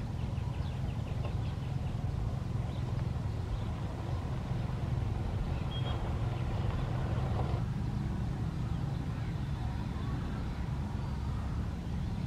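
Steady low motor rumble, like a distant engine, running throughout. A quick run of faint high bird chirps comes in the first second, and a brief hiss comes about halfway through.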